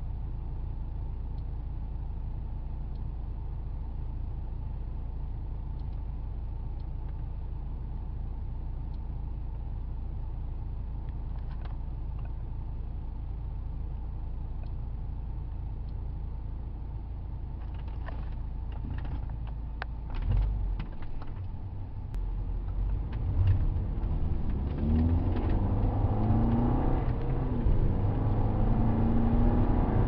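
2008 VW Passat's 2.0T turbocharged four-cylinder engine idling steadily, heard from inside the cabin. About twenty seconds in come a few clicks and knocks. Then the car pulls away and accelerates, the engine note louder and rising in short steps through the gears.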